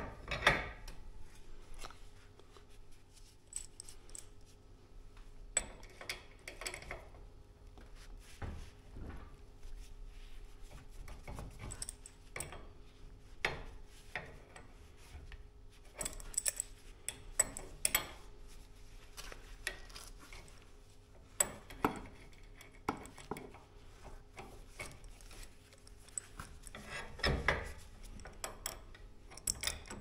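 Scattered metal clinks, taps and short scrapes of hand tools on a garage door torsion spring's winding cone, as a steel winding bar is fitted and a wrench is set on the set screws before the spring tension is let off. A faint steady hum lies beneath.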